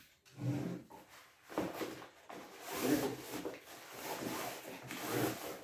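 Cardboard box and the tripod's fabric carrying case rubbing and scraping as the case is slid out of the box, in irregular bouts with several louder swells.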